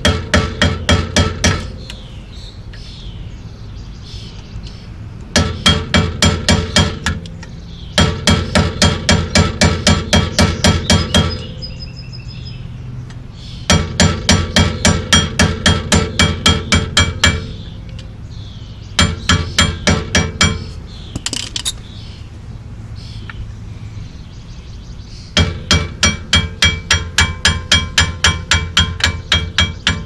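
Rapid, ringing metal-on-metal hammer strikes, about six a second, in six runs of one to four seconds with short pauses between. The hammer is driving out the rear brake caliper's pad retaining pin on a Chrysler Crossfire.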